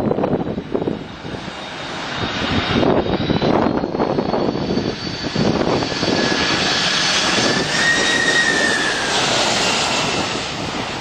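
Boeing 747's jet engines on a low landing approach, a loud rushing noise that builds a couple of seconds in as the airliner comes close. A high engine whine rises in pitch through the middle and sags slightly near the end.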